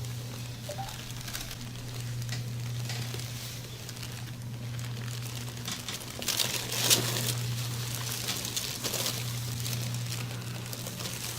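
Rustling and crinkling of movement on a chiropractic treatment table, over a steady low hum, with a sharper, louder crackle about seven seconds in.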